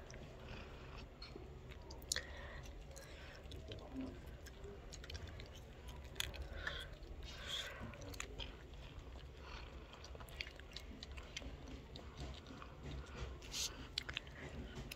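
A puppy eating dry kibble: irregular crisp crunches and chewing as it bites into the pellets.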